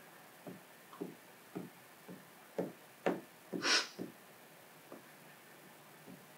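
A hand squeegee pushed in short strokes over wet paint protection film on a car's fender: a string of soft, brief swipes about two a second, with one longer, hissier swipe a little past the middle.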